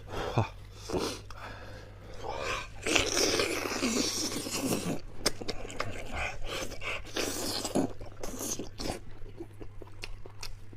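A person chewing and gnawing close to the microphone on soft stewed beef hoof tendon: irregular wet smacks, clicks and mouth noises, with a denser stretch about three to five seconds in.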